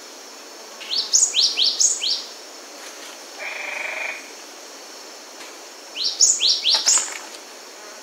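Cinereous tit singing: two short bouts of quick, high, repeated whistled notes, each note sweeping sharply upward, about a second and a half in and again near the end. A brief harsh buzzy call comes between the bouts, over a steady high background hiss.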